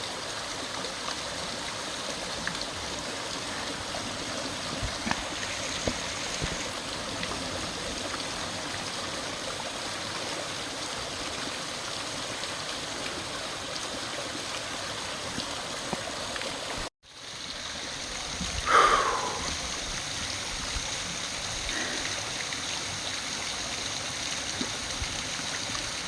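Waterfall and creek rushing: a steady wash of falling water. It cuts out for an instant about two-thirds of the way through, and a short, louder sound stands out shortly after.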